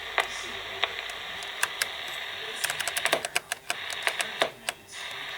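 Static hiss from a Realistic TRC-57 SSB CB base station's speaker, broken by scattered sharp clicks. About halfway through the clicks come thick and fast, and the hiss cuts out briefly several times.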